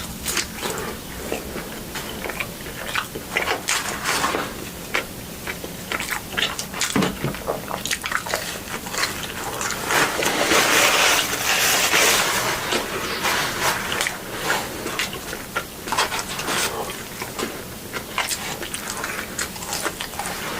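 Close-miked eating of a Raising Cane's fried-food meal: biting and chewing, with crunches and wet mouth clicks throughout. It grows louder and denser for a couple of seconds about halfway through.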